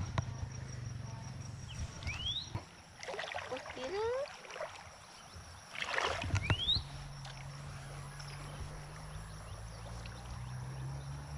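Water swishing and splashing around a hand line as it is cast and worked in a shallow river, in two short noisy swishes. Two brief rising chirps and a click can be heard, and a steady low hum sets in during the second half.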